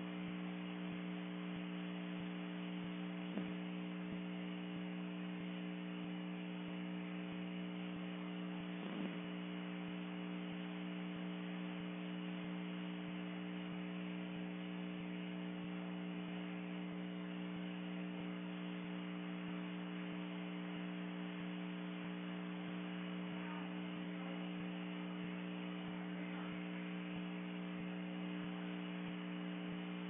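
Steady electrical hum, a constant drone of several pitched tones strongest at the low end, with two faint short sounds about three and nine seconds in.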